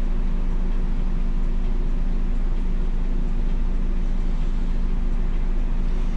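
MAN NL283 Lion's City city bus's diesel engine idling steadily while the bus stands still, heard from the driver's cab.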